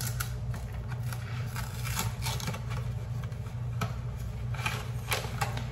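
A cardboard box of yellow rice mix being torn open by hand: short crackling and tearing scrapes at irregular intervals, over a steady low hum.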